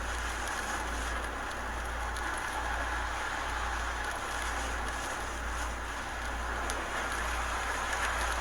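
Hurricane wind and driving rain: a steady rushing noise, with wind buffeting the microphone in an uneven low rumble.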